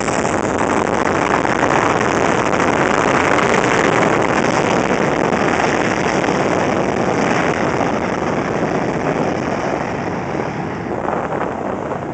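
McDonnell Douglas MD-80's two rear-mounted Pratt & Whitney JT8D turbofans at takeoff thrust: a loud, steady roar as the jet rolls away down the runway, easing off over the last few seconds. Wind buffets the microphone near the end.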